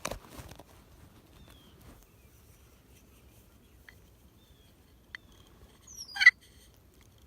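Faint scattered songbird chirps over quiet woodland background, then about six seconds in a short, loud wild turkey gobble that starts with a quick downward sweep. A brief rustle sounds right at the start.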